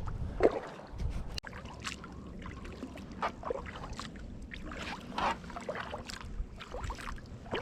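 Water lapping and dripping around a kayak, with many small irregular splashes and ticks against the hull.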